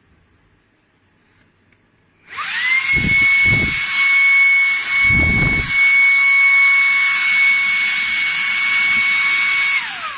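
Shark WandVac 2.0 cordless handheld vacuum switched on about two seconds in and running for about seven seconds with a steady high whine and hiss, then switched off, the whine falling as the motor spins down. Two low thumps in the first half of the run.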